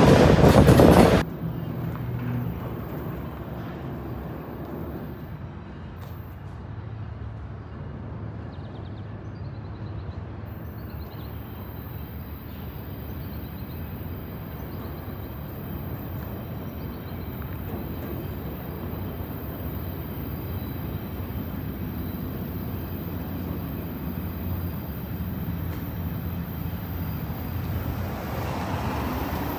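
A loud passing train that cuts off sharply about a second in, followed by a steady low rumble of a train at a distance.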